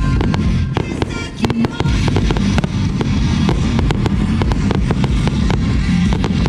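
Music with drums plays while fireworks burst and crackle, a dense run of sharp pops and cracks.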